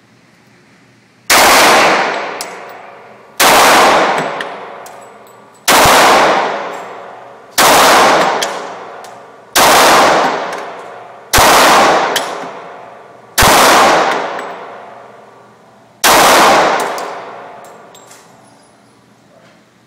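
Glock 19 9mm pistol fired eight times in slow, deliberate succession, about one shot every two seconds. Each shot is followed by a long echoing decay.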